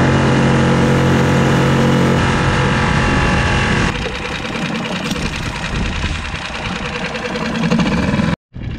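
Small outboard motor on a one-person skiff running steadily under way, a loud, even hum. About four seconds in it becomes quieter and rougher.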